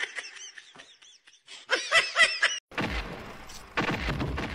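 A woman laughing, a few short rising-and-falling peals, faint at first and louder a little before the middle. Then an abrupt change to a steady hiss with a few dull knocks.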